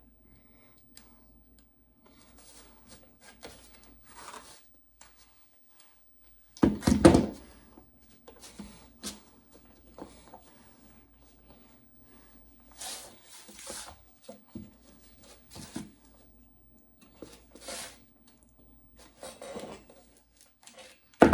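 Hand-working sounds at the bench: irregular scrapes, rustles and light knocks as picture-hanging wire is twisted and the frame is handled, with one loud thump about seven seconds in.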